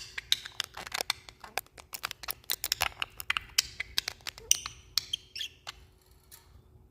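Budgies chattering: a fast run of sharp clicks mixed with short, high chirps and squeaks that thins out near the end.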